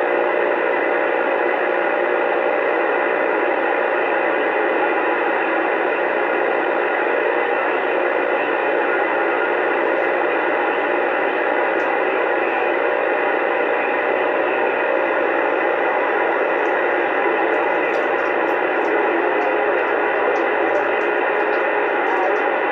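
Steady static hiss from a Uniden Bearcat CB radio's speaker on AM channel 28, with the channel open and no one talking through it.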